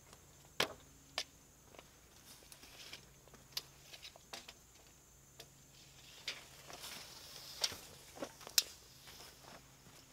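A few sharp clicks and light knocks from handling a tape measure and a heavy wooden beam, scattered irregularly, with soft footsteps and scuffs on leaf-littered ground between them.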